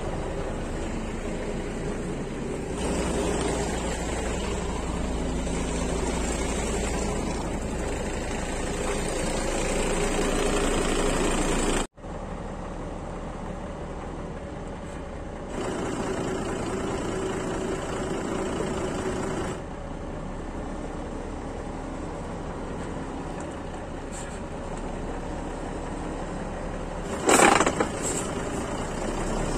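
Diesel engine of a semi-truck tractor unit running steadily at low revs, heard in several joined takes. Near the end there is a short, loud burst of noise.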